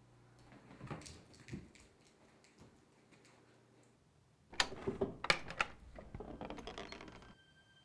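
A few soft footsteps, then, about halfway through, a three-second run of sharp clicks and rattles from a door latch and handle being worked, over a low rumble.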